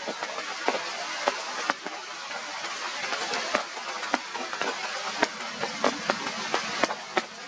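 Heavy rain: a steady hiss with frequent sharp, irregular drips and taps.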